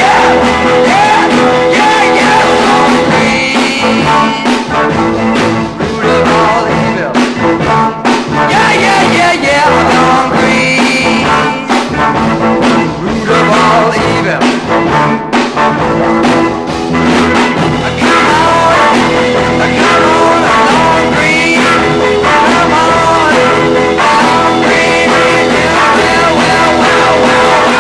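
Rock music with a singer, played continuously as a backing track.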